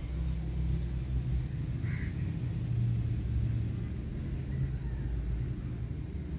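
A steady low rumble that swells around the middle, with a faint short high sound about two seconds in.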